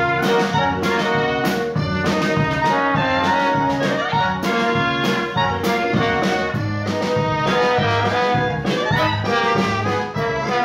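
Lively band music with a steady beat.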